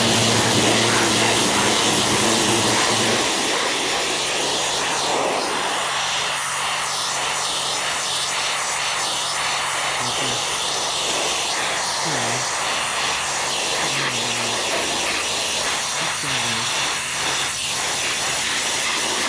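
Greenworks 2300 PSI electric pressure washer running and spraying, a steady hiss of water jet with the motor and pump humming underneath. The hum is louder for the first few seconds, then eases off while the spray goes on.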